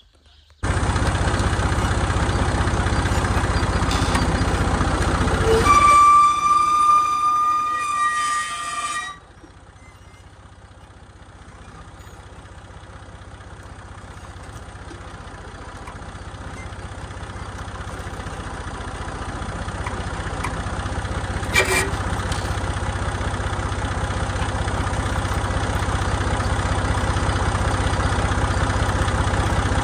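Massey Ferguson 148 tractor's three-cylinder diesel engine running loudly, with a high steady whine for about three seconds. About nine seconds in the engine drops to a quieter idle that slowly grows louder, with a single sharp clank about two-thirds of the way through.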